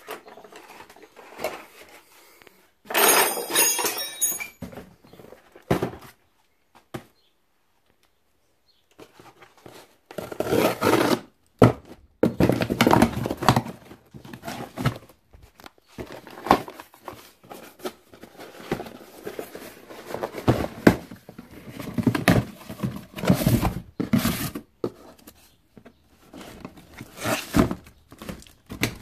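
Hands handling and opening a cardboard shipping box with crumpled packing paper inside: irregular rustling, scraping and thumps of cardboard and paper. There is a loud burst about three seconds in and a short lull around seven seconds.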